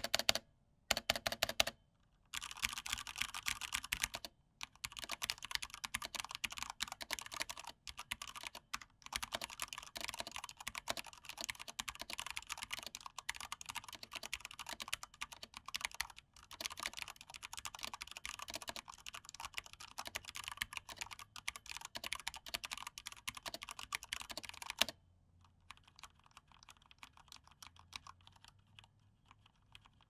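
ASUS ROG Falchion 65% mechanical keyboard with Cherry MX Red linear switches being typed on: a few separate keystrokes at first, then fast continuous typing, much quieter for the last few seconds. The keystrokes carry a fair bit of pinging from the resonating aluminum top plate.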